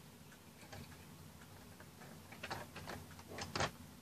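Small plastic Lego pieces clicking and tapping as they are handled and pulled apart: a few faint clicks at first, then a quick cluster of sharper clicks, the loudest about three and a half seconds in.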